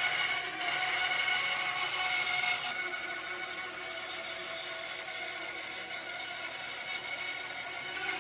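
Electric power saw running steadily while cutting wood, a constant motor whine over the noise of the cut.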